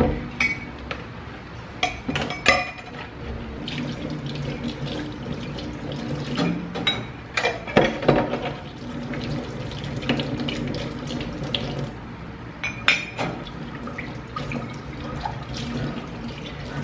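Kitchen faucet running into a sink while drinking glasses are soaped and rinsed under it, with frequent sharp clinks and knocks of glassware against the sink and rack.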